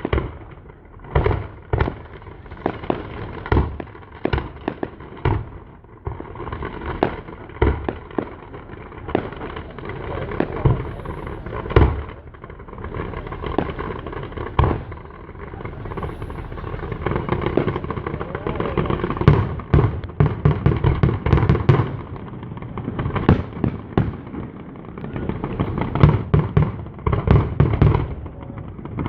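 An aerial fireworks display going off: a steady run of sharp bangs and cracks from shells bursting, growing into dense rapid crackling about two-thirds of the way through and again near the end.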